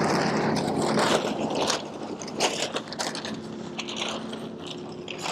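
A large sheet of stiff EMP shielding cloth being pulled out and shaken open, crinkling and rustling, louder in the first two seconds and then softer crinkles. A faint low steady hum of a passing car runs beneath it.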